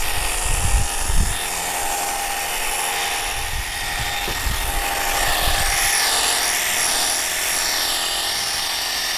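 Wosai MX-001 cordless pressure washer running steadily with its foam generator attached, spraying shampoo foam: an even electric motor-pump whine mixed with the hiss of the spray. A few dull low bumps come in the first second and a half.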